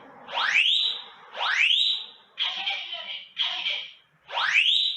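Smoke detector of a wireless interlinked fire alarm system sounding its alarm during an activation test. Two rising whooping sweep tones alternate with two short recorded voice warnings, about one each second, in a repeating cycle; this shows the detector has tripped.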